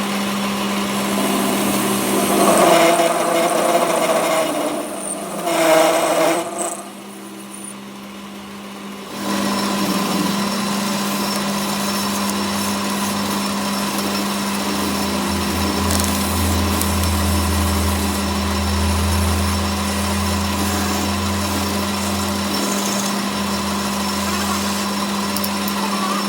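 An electric power tool's motor running with a steady hum. It gets louder and rougher for a few seconds, as if under load, then stops for about two seconds and starts again, running steadily to the end.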